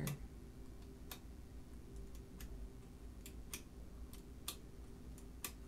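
About ten faint, sharp metallic clicks at irregular intervals as a metal pick nudges the carry dogs and number wheels of a 1925 Burroughs Class 5 mechanical calculator. The parts are stiff from dried oil and just starting to free up.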